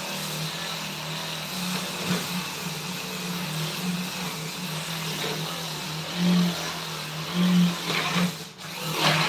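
Small electric power tool running steadily, with a few swells in loudness; it cuts out briefly near the end and starts again.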